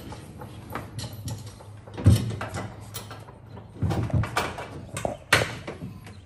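Clanks, knocks and rattles of metal hardware and parts being handled and fitted inside a race car's cockpit. The sharpest knocks come about two seconds in, around four seconds and just after five seconds, with lighter clicks between them.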